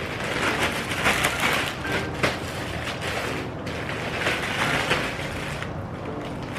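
Plastic poly mailer bag crinkling and tearing as it is pulled open by hand, a dense crackling rustle with many sharp crackles.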